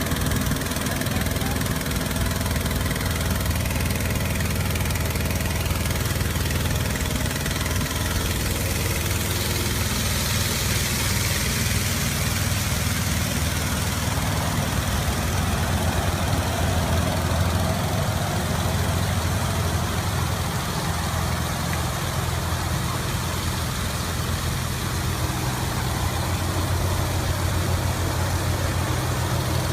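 Small engine of a watering boat running steadily at idle-like speed, its low hum even throughout. A brief hiss rises over it about ten seconds in.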